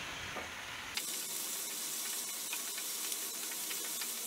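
Chopped onions and ginger-garlic paste sizzling in hot oil in a pan, the hiss growing louder and brighter from about a second in, with small clicks as a spatula stirs them.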